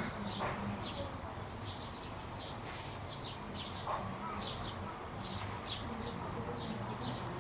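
A small bird chirping over and over, short falling notes at about two a second.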